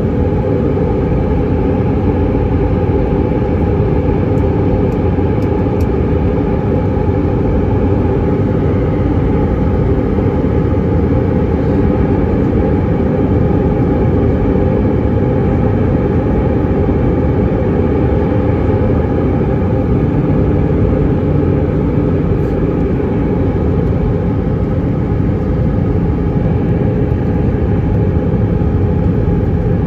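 Steady cabin noise of an Airbus A319-132 in flight on its approach, heard from a window seat over the wing: rushing airflow and the hum of its IAE V2500 turbofan engines, with a few steady droning tones running through it.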